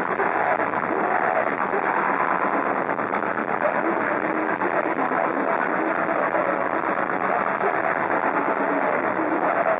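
Melodic death metal band playing live with distorted guitars and drums, heard as a dense, smeared wall of sound that never lets up.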